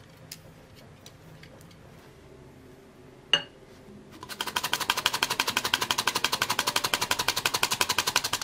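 A few light taps, then a sharp clink a little after three seconds. From about four seconds in, a hand-operated metal flour sifter is worked over a glass bowl, giving a loud, fast, even clicking rattle as the flour, matcha and baking powder sift down into whipped egg batter.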